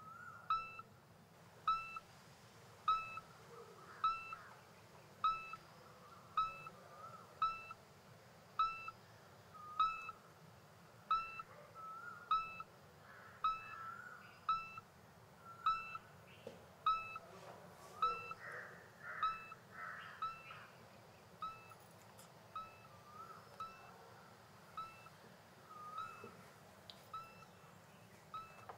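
A short high-pitched tone repeating steadily about once a second, some beats louder than others, with a few fainter chirps in between near the middle.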